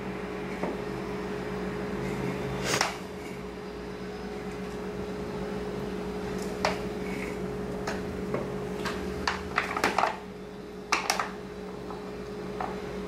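Thick cake batter being spooned into a paper panettone mold: scattered soft clicks and scrapes of a spatula against the paper, coming more often in the second half, over a steady electrical hum.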